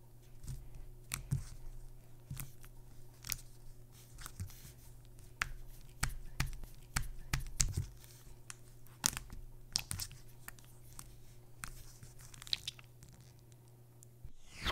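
Jello slime being kneaded and squeezed by hand, giving irregular wet clicks and pops as it is pressed and folded, over a steady low hum.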